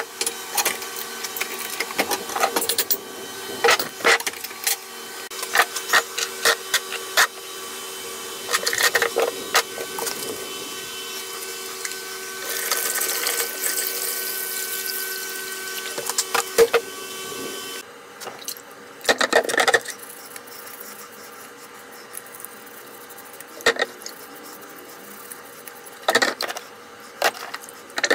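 Metal vise parts being handled on a workbench: repeated clicks and knocks of parts and tools. A spray bottle hisses for a couple of seconds near the middle, and a steady hum under the first part of the sound cuts off abruptly about two-thirds of the way through.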